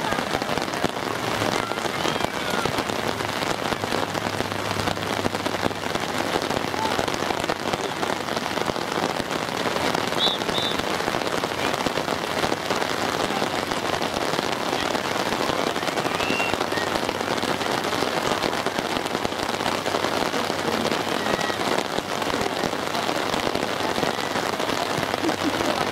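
Steady rain, a dense, even patter of drops that does not let up.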